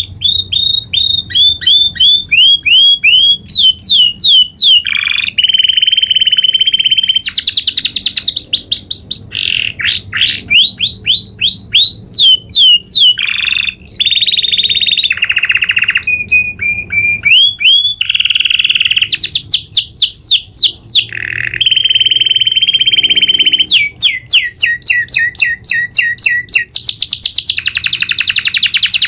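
Domestic canary singing a long, almost unbroken song of rolling trills and runs of fast repeated falling notes, switching to a new phrase every second or two.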